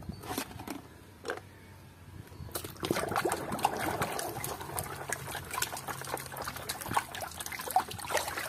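A hand sloshing and splashing in a tub of muddy water, washing plastic toys. A few light clicks come first, then the swishing of water starts about two and a half seconds in.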